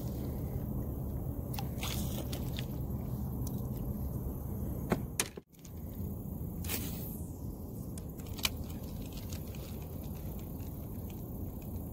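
Fishing gear being handled in a plastic kayak: a few sharp clicks and knocks over a steady low rumble. The sound cuts out for an instant about five seconds in, and a short falling whoosh follows about seven seconds in.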